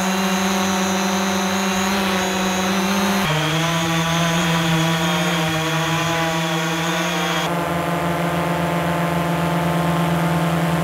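Three DJI Mavic Pro drones' motors and propellers buzzing steadily, one after another, with abrupt changes about three and a half and seven and a half seconds in. First comes the original Mavic Pro's higher, angrier buzz. Then the Mavic Pro on low-noise propellers, a little lower in pitch. Last is the Mavic Pro Platinum with its new motors: a deeper buzz with much less high-pitched hiss, the sign of its quieter motors.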